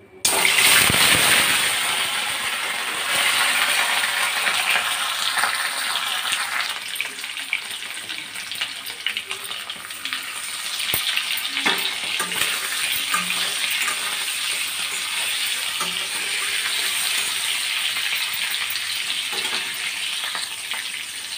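Boiled, peeled whole potatoes dropped into hot oil in a kadai: a sudden loud sizzle as they go in, then steady frying with a few clicks against the pan.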